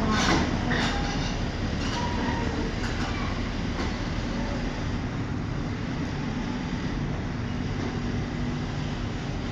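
Hi-rail excavator travelling on rails: a steady diesel engine rumble with sharp metallic clicks and knocks in the first few seconds.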